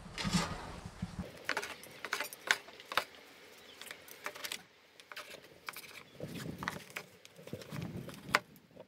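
Metal tongs clinking on a grill grate at first, then a cleaver cutting grilled meat and sausages on a wooden board: a run of sharp, uneven knocks and clicks.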